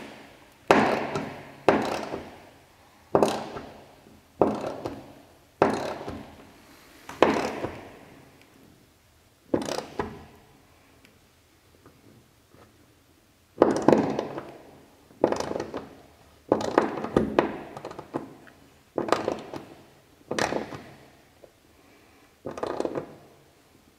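Repeated hollow metal knocks, each ringing out briefly through a refrigerated semi-trailer's wall, as the nut on a stainless steel screw is tightened from outside. The knocks come irregularly, one every second or two, with a longer pause in the middle.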